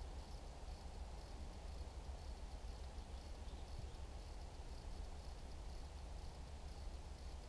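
Faint outdoor ambience: an insect chirping in a steady repeated pulse over a low, even rumble.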